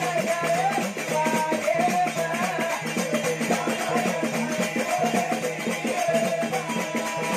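Banjara bhajan music: a wavering melody over a steady low drone, driven by a quick, steady drum and shaker rhythm.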